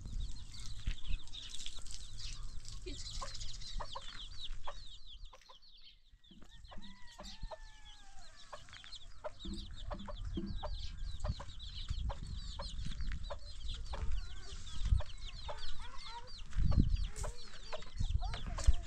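Chickens clucking amid many quick, high chirps, with a low rumble underneath and a brief lull about six seconds in.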